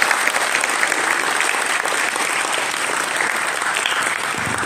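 Audience applauding: many hands clapping together, dense and steady, easing off a little near the end.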